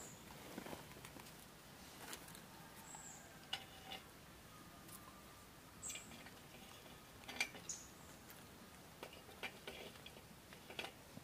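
Wood fire crackling faintly in a portable stainless-steel wood-burning camp stove, with scattered small pops and ticks and a few short high chirps.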